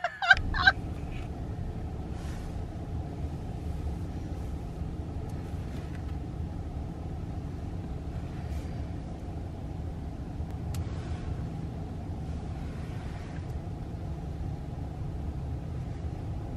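Steady low rumble inside a Tesla Model X's cabin, level throughout with no engine note.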